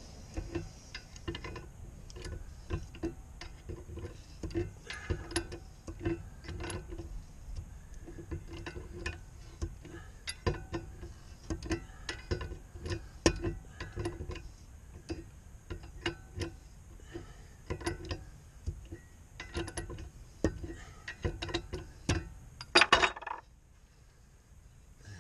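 Irregular metallic clicking and tapping as a hand tool works at a propeller's shaft nut and hub, with a louder metal clatter near the end.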